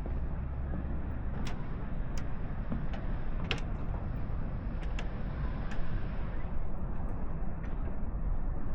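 Outdoor ambience: a steady low rumble with a few short, sharp clicks at irregular moments.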